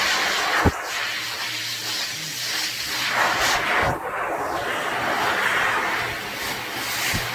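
High-velocity dog dryer (water blower) blowing a strong, steady rush of air through its hose and nozzle, the hiss swelling and dipping as the nozzle moves over the dog's wet leg fur. A few short low thumps break in, about a second in and again near four seconds.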